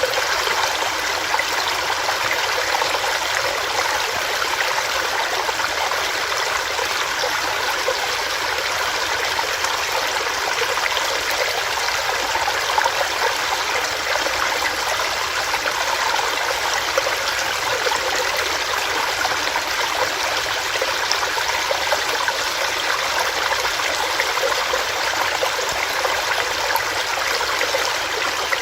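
Small rocky stream running over rocks, a steady, even rush of water.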